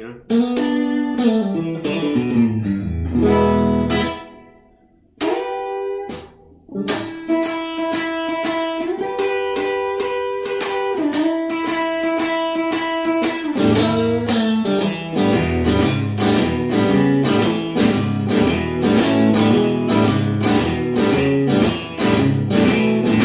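Suhr Standard Plus electric guitar being played. First come a few chords with short gaps between them, then a run of held single notes, and from about halfway a steady rhythm of strummed chords.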